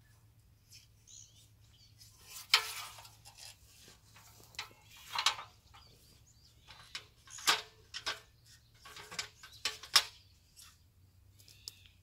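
Footsteps rustling through dry grass and an aluminium ladder knocking and rattling as it is carried up and set down, in a series of irregular bursts.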